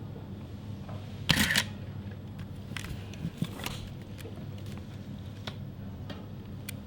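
Mamiya ZD medium format digital SLR firing its shutter once, about a second in: two sharp clacks about a third of a second apart, as at a slow shutter speed. A few faint clicks from handling the camera follow.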